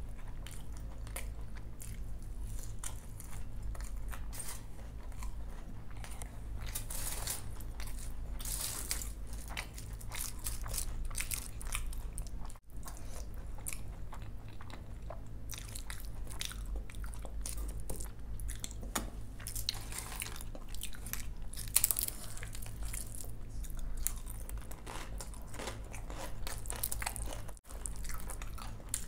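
Close-miked chewing and crunching of crisp fried snacks and vegetable bhaji eaten by hand, many short crunches over a steady low hum. One sharp crunch about three-quarters of the way through is the loudest moment, and the sound cuts out for an instant twice.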